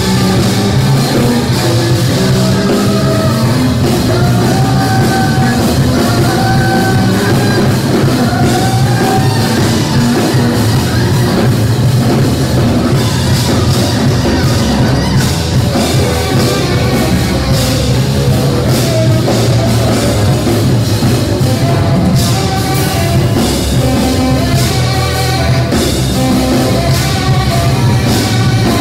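Live jazz trio playing loud: a tenor saxophone runs melodic lines over electric bass and a drum kit with busy cymbals.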